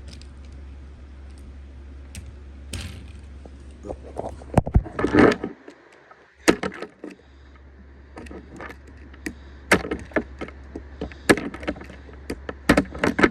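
Small plastic and metal toy train pieces clicking and clattering as they are handled and set on a plastic track, with Percy coupled to his hopper car: sharp irregular knocks, several in quick clusters, over a steady low hum.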